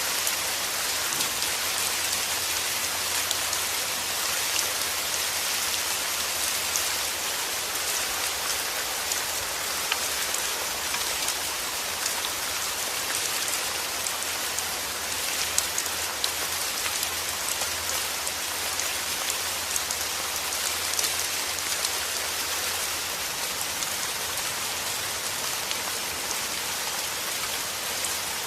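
Steady rain falling, a dense even hiss of drops with many small individual drop ticks.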